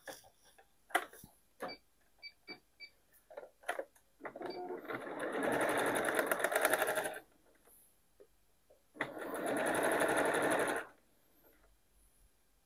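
Electric home sewing machine stitching knit fabric with a zigzag stitch, running in two bursts of a few seconds each with a short stop between. Before it starts there are fabric-handling clicks and a few short high beeps.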